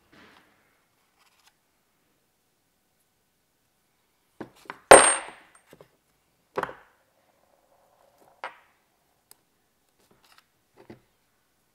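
Steel pistons and connecting rods clacking against each other and the bench as they are handled. A few small clicks, then one sharp metallic knock with a brief high ring about five seconds in. A second clack comes a moment later, with lighter taps near the end.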